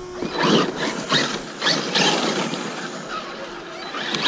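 Traxxas Maxx electric RC monster truck driven in repeated short bursts of throttle over dirt and dry leaves, its tyres spinning and scrabbling in about half a dozen quick surges.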